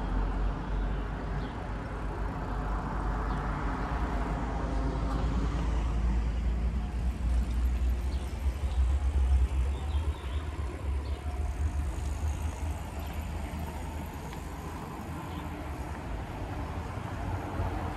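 Street traffic: a motor vehicle's engine rumbling close by, swelling to its loudest about halfway through and then easing off.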